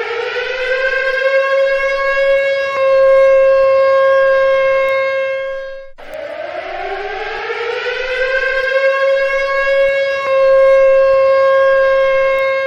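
Civil defense siren sounding an attack warning: it winds up to a steady high wail, then cuts off abruptly and winds up again, a cycle repeating about every six seconds.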